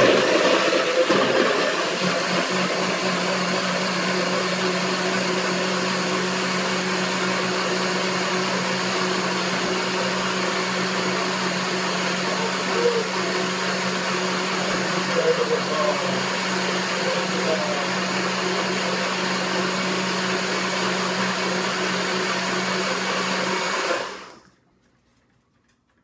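NutriBullet blender motor running steadily at full speed, blending watermelon rinds with water into juice, then switching off about 24 seconds in and winding down within about a second.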